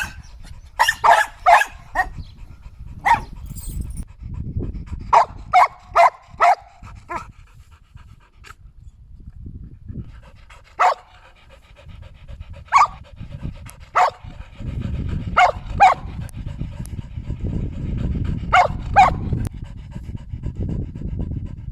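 Shetland sheepdog barking in sharp, high barks: quick runs of several barks near the start, then single or paired barks a second or more apart. A steady low background noise runs under them and grows heavier in the second half.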